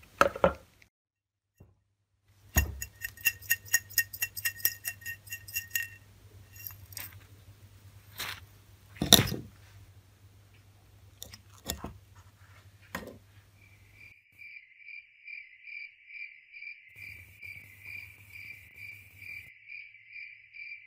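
Rusty metal parts of an old kerosene lamp handled on a wooden workbench: several sharp knocks as pieces are set down or moved, the loudest about nine seconds in, and a quick run of rattling, ringing clinks early on. From about two-thirds of the way through a regular high chirp repeats two to three times a second.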